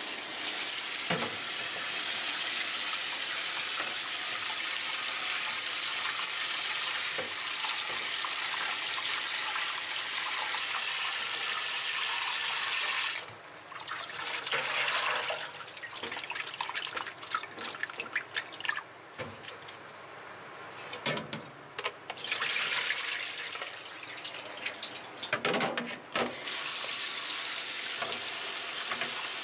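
Kitchen tap running into a stainless steel sink while pig intestines are rinsed and rubbed by hand in a plastic bowl and colander. The stream is steady for about the first thirteen seconds, then breaks into uneven splashing and sloshing, and runs steadily again near the end.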